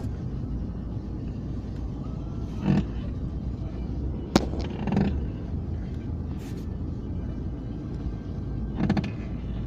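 Daewoo Lanos power steering creaking as the steering wheel is turned: a few short creaks several seconds apart over the steady low rumble of the running engine, with one sharp click about four seconds in. This is the creak-on-turning fault that the owner is asking about, cause unknown.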